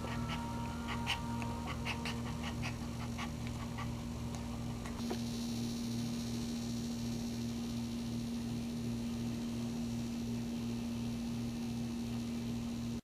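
A whelping dog whimpering in short high squeaks, which die away about four seconds in, over a steady electrical hum that pulses evenly. A thin high whine comes in about five seconds in.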